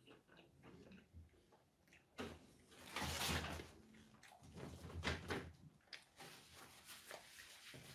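Paper napkins rustling and crinkling as they are handled, loudest about three seconds in and again about five seconds in, with small clicks between.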